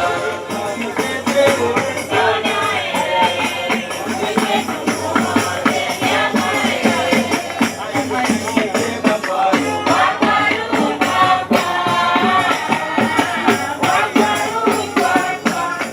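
Upbeat Swahili dance song: singing over a steady beat of shaken and struck percussion.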